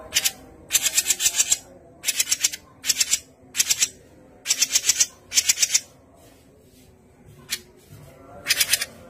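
Cucak jenggot mini, a bulbul, chattering: repeated short bursts of rapid, dry, high-pitched rattling notes, about nine bursts with brief pauses between them.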